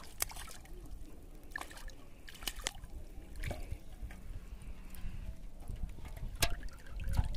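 Water dripping and splashing off a hooked catfish as it is lifted out of the river on a line, with scattered sharp splashes and drips.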